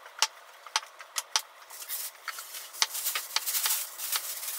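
Kitchen knife slicing boiled eggs on a mango-wood cutting board: a series of sharp, irregular taps as the blade meets the board. A soft hiss runs under the taps in the second half.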